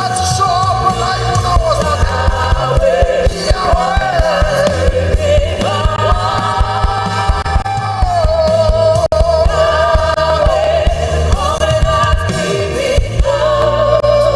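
Gospel worship song performed live: voices holding long, wavering sung notes over a band's accompaniment.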